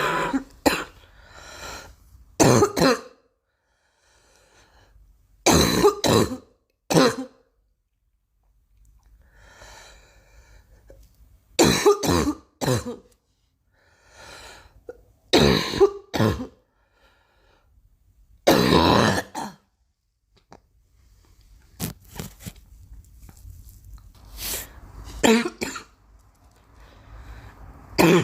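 A girl coughing repeatedly: short bouts every few seconds, often two or three coughs close together, with quiet pauses between.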